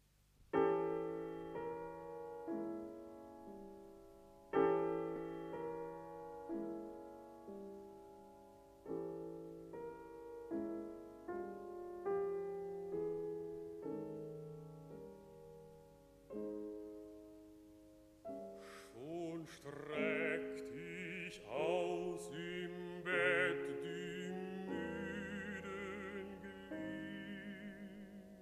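Art song for baritone and piano: the piano plays the opening alone in separate struck chords, each dying away. About two-thirds of the way through, a baritone voice enters, singing with a wide vibrato over the piano.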